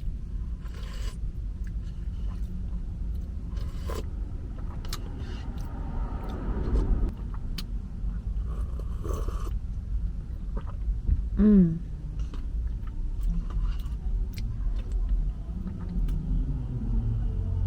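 Eating sounds: chewing and scattered light clicks of utensils against a dish over a steady low rumble, with a short falling hum about eleven seconds in.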